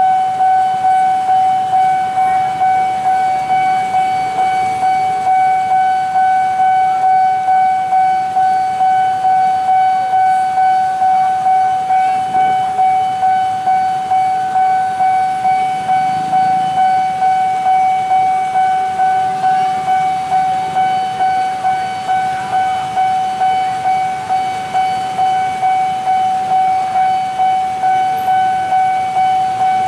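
Railway level-crossing warning bell ringing nonstop, one steady ringing tone struck over and over in an even beat about once a second. A faint low rumble of train carriages rolling away sits underneath.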